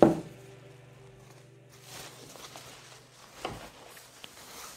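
Faint rustling of a thin, crinkled nylon foldable shopping bag being handled and shaken out, with a soft bump about three and a half seconds in.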